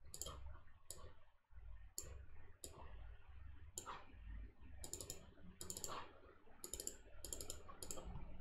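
Quiet clicks of a computer mouse: scattered single clicks at first, then several quick double clicks in the second half.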